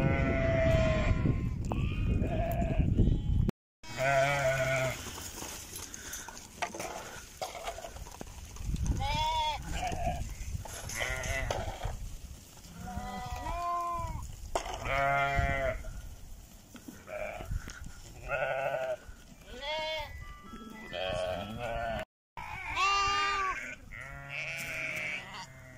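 A flock of Harri sheep, ewes and lambs, bleating over and over. The calls come one after another every second or two, some higher-pitched than others, sometimes overlapping.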